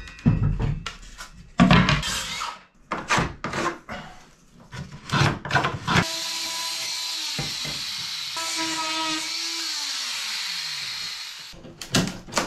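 Short knocks and scrapes of wood being handled, then a small electric power tool's motor runs for about five seconds, its pitch dropping once partway and sliding down near the end as it spins down.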